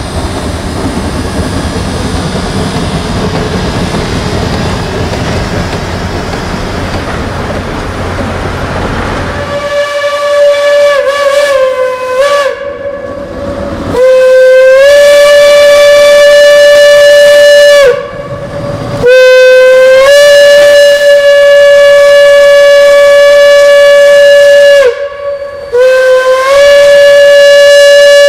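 Geared logging steam locomotive working a train: a steady rush of exhaust and running noise, then its steam whistle blowing four long blasts, the last still sounding at the end.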